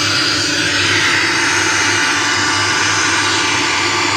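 Z-Plus tower home theater speaker hissing with untuned FM radio static: a loud, steady rushing noise with a low hum underneath.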